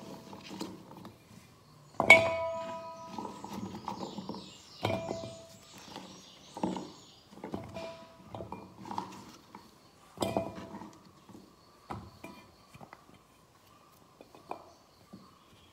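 Handfuls of cut pumpkin chunks dropped into a stainless steel bowl, each landing with a knock and a brief metallic ring. About ten irregular drops, the loudest about two seconds in.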